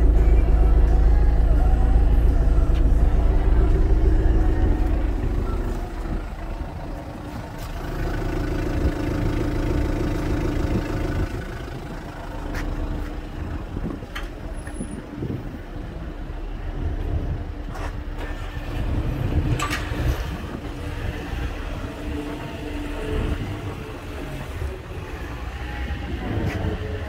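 Kubota U55-4 mini excavator's diesel engine idling steadily. It is loud at first, then fainter from about five seconds in, with a few sharp knocks scattered through.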